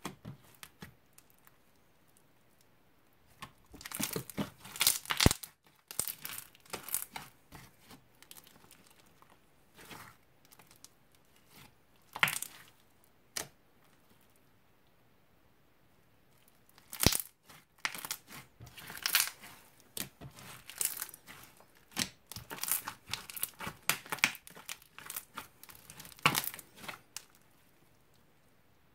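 Bead-filled crunchy slime being kneaded, pressed and stretched by hand, crackling and clicking in irregular bursts, with a couple of quiet pauses between handlings.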